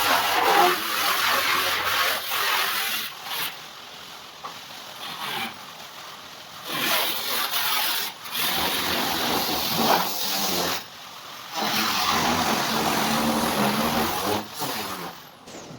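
Hand scraping or abrasive work on the bus's sheet-metal body, a rough rasping noise that comes in bursts of one to three seconds with short pauses between.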